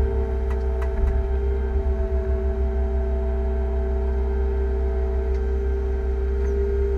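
Liebherr 311 wheeled excavator's engine and hydraulics running steadily under load as the boom lifts and swings a full bucket, heard from inside the cab: a constant whine over a low drone.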